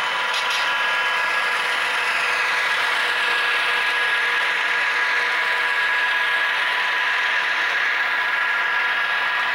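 HO-scale model freight train rolling along the track: a steady mechanical rattle of wheels on rail with a constant whine running through it, swelling a little after the first couple of seconds.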